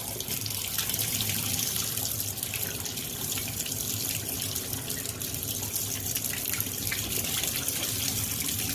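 Water running steadily from a plumbing fixture, an even hiss of flowing water with no breaks.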